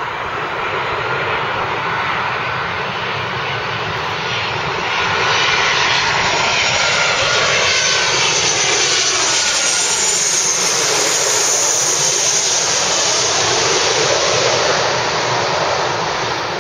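WestJet Boeing 737-700's CFM56-7B turbofan engines on landing approach, growing louder as the jet nears and passes overhead. Their tones slide down in pitch as it goes by, and the sound eases off near the end as it moves away.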